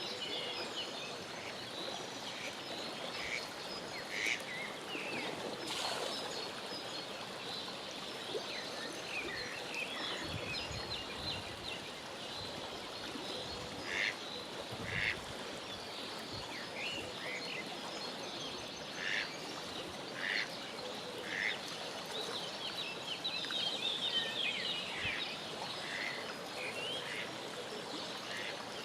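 Mallard ducklings peeping: many short, high calls scattered throughout, a few louder ones in the middle and a busier flurry near the end, over a steady background hiss.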